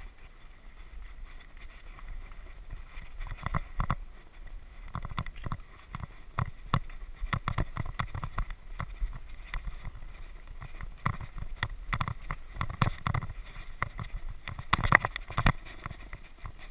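Trek Rail 9.8 electric mountain bike ridden over a rough dirt singletrack: irregular clatter and knocks from the bike over rocks and roots, on a steady low rumble of tyres and wind. The hardest knock comes near the end.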